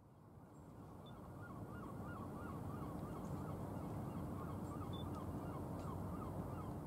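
A flock of geese calling, many short honks in quick succession, over a low steady rumble with a faint hum. The sound swells up over the first couple of seconds.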